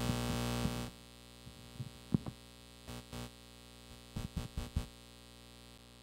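Steady mains hum and buzz with many overtones, picked up through an analog XLR-over-CAT extender run on unshielded CAT6 cable, which drops off sharply about a second in. After that only a faint hum remains, under a handful of light handling clicks and knocks.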